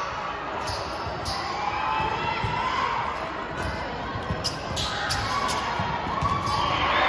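Basketball bouncing on a hard indoor court, a series of sharp thuds at irregular intervals, over the voices and calls of a crowd of spectators.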